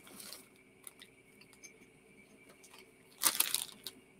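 Plastic crisp packet (Skips) crinkling in one short burst about three seconds in, with a few faint rustles and small clicks before it.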